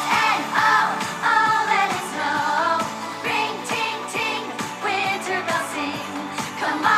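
Pop song with a female-sounding sung vocal line and a steady beat.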